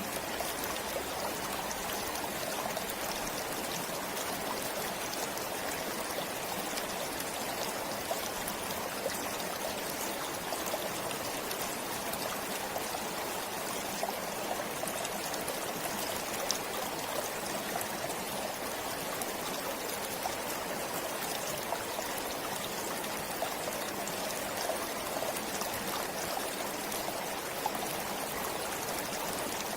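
A forest stream flowing steadily, water trickling and splashing over stones, with small scattered droplet splashes.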